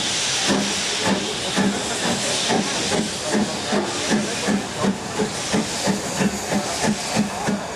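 Steam locomotive pulling away: its exhaust beats quicken from about two to about three a second, over a steady hiss of steam.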